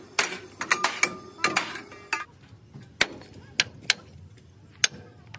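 Hammer blows on an Isuzu truck's steel chassis rail during repair of the cracked frame: a quick run of ringing clangs in the first two seconds, then single sharp strikes about half a second to a second apart.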